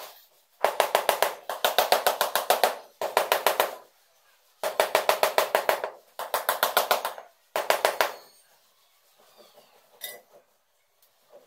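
Rubber mallet tapping a large porcelain floor tile to bed it into the mortar: quick taps, about eight or nine a second, in six runs of a second or so, stopping about eight seconds in.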